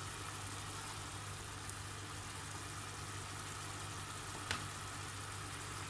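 Swordfish cubes in tomato sauce sizzling and bubbling in a frying pan, a steady hiss with a low steady hum underneath. There is one sharp click about three-quarters of the way through.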